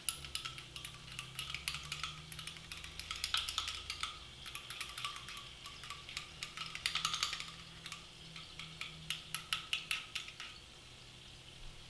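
Light clicks and scrapes of a small metal utensil against sauce packets and a dish, coming in quick clusters of ticks and stopping shortly before the end.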